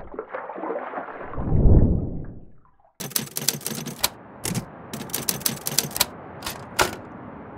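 A rushing swell with a deep low boom peaking just under two seconds in, then typewriter keys clacking in quick, irregular strikes from about three to seven seconds in over a steady faint hiss.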